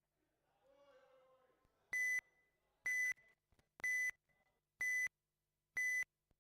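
Race-start tone sequence from the RC race control system: five short, high electronic beeps about a second apart, counting the drivers in to the start.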